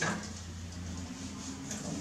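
A towel rubbing a wet baby monkey's fur as it is dried, a soft rustle over a low steady hum, with a brief click right at the start.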